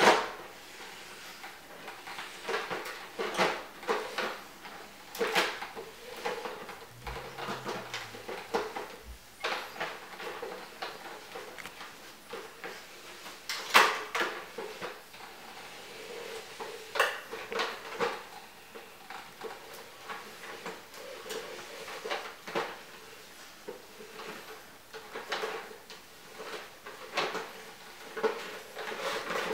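Irregular clacks and knocks as a pug puppy bites, paws and jostles a Mint robotic floor cleaner on a tile floor, its plastic body knocked about. A faint steady hum runs underneath.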